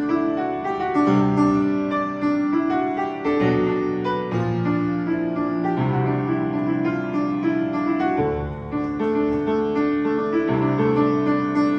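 Background piano music: an original score of held notes and chords that change at a slow, even pace.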